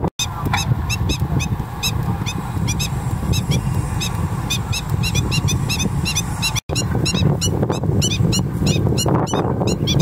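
Many short, high-pitched bird calls in quick succession over a steady low rumble. The sound drops out for an instant twice.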